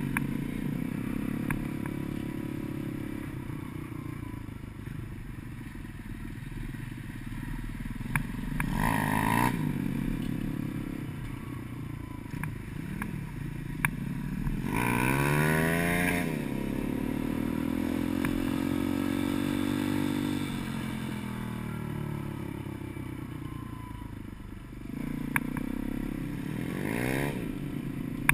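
Gio X33 140cc pit bike's single-cylinder four-stroke engine running under way on a dirt trail, revving up and easing off several times, most strongly about nine, fifteen and twenty-seven seconds in. A few sharp knocks come through along the way.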